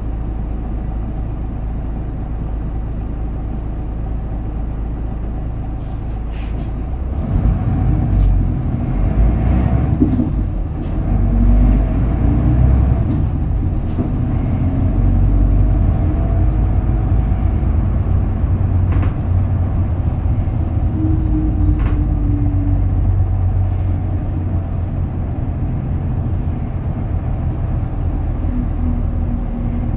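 Isuzu Erga Mio (KK-LR233J1) city bus diesel engine heard from inside the cabin: it idles steadily, then from about seven seconds in the bus pulls away and the engine note rises as it gets under way, with a few short sharp clicks and rattles along the way.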